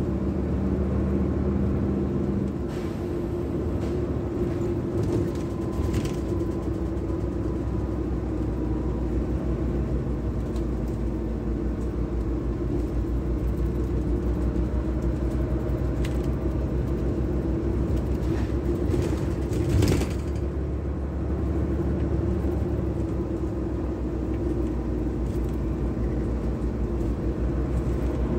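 Articulated city bus heard from inside while driving: a steady low drone of engine and road noise, with scattered clicks and knocks and one louder knock about two-thirds of the way through.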